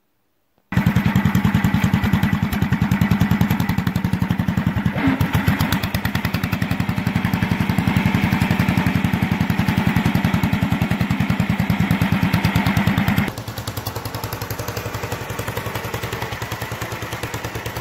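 Homemade garden tractor's engine running steadily under load with a fast, even firing beat as it backs up at speed, in reverse on the Wheel Horse transmission and third on the Model A transmission. About three-quarters of the way through it drops a step quieter.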